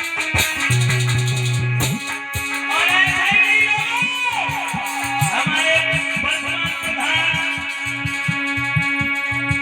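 Live stage band music: a plucked-string or keyboard melody with sliding, bending notes plays over a held low note and a steady quick drum beat.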